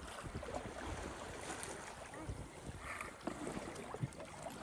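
Wind buffeting the microphone and water washing along the hull of a sailboat under way, an uneven rushing noise with low gusty thumps.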